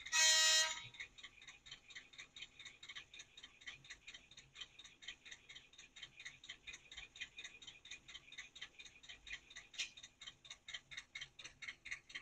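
Short horn toot, about half a second long, from the sound decoder's tiny speaker in a PIKO N-scale Whitcomb 65-ton diesel model, the factory F3 short-horn function. It is followed by a faint, fast, even ticking from the model, about five ticks a second, growing a little stronger near the end.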